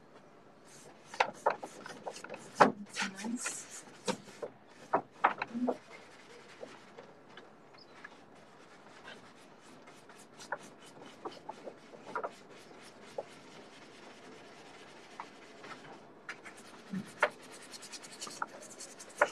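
Paintbrush strokes on canvas: short scratchy scrubbing and dabbing, thickest in the first few seconds and again near the end, with a quieter spell between.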